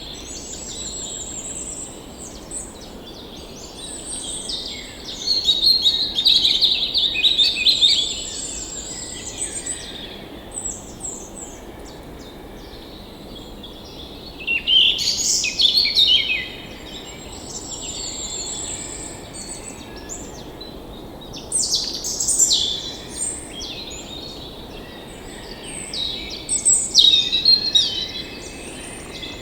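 Several birds singing and chirping, songs overlapping, with louder spells every several seconds, over a steady faint hiss.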